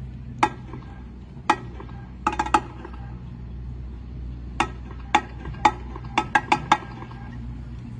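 Scattered sharp taps, some single and some in quick groups of three or four, each with a brief ringing pitch, over a steady low hum.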